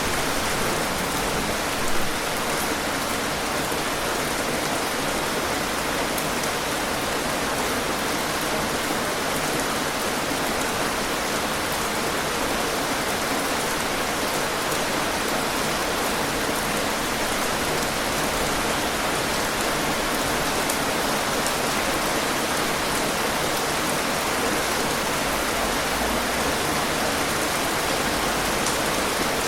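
Steady, dense rainfall: an even hiss of rain with scattered droplet ticks, and one brief louder tap about two seconds in.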